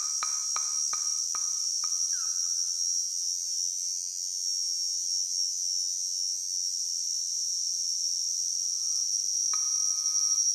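Steady, high-pitched chirring of insects. Evenly spaced wood-block clicks from the music die away about two seconds in, and a brief held tone comes in near the end.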